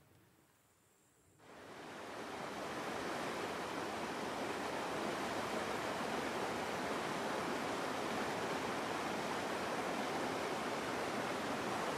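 Near silence, then about a second and a half in a shallow mountain stream fades in, water rushing steadily over rocks.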